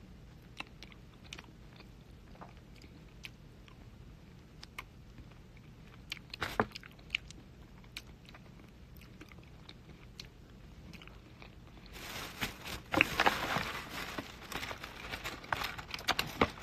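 Close mouth sounds of eating: faint lip smacks and finger-licking clicks. About twelve seconds in, louder crinkling and crackling of aluminium foil being handled in a cardboard takeout box.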